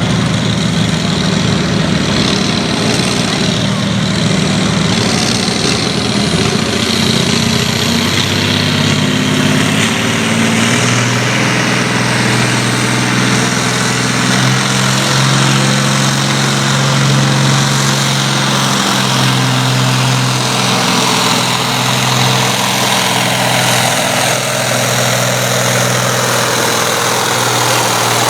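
Farm pulling tractor's engine running steadily and loud, with a low even drone.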